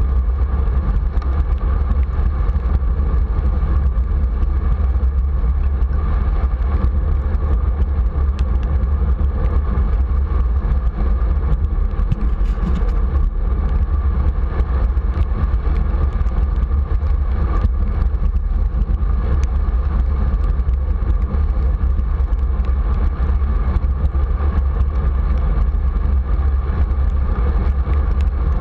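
Steady wind rushing over the microphone of a bicycle-mounted camera, mixed with the hiss of bicycle tyres rolling on wet pavement.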